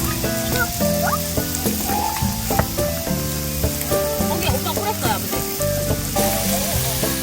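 Food sizzling as it fries in a hot pan, a steady hiss, under background music with a run of changing notes.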